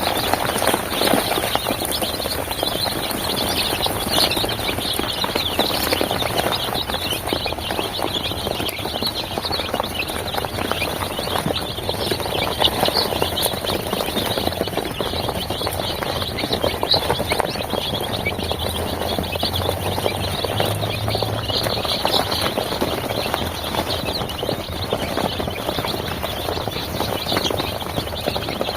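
A crowd of four-day-old Sonali chicks peeping together, many high, short chirps overlapping without a break.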